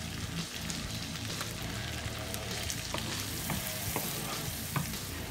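Shrimp and diced bell peppers sizzling in oil in a frying pan while being stirred with a wooden spatula. A few light clicks sound near the end.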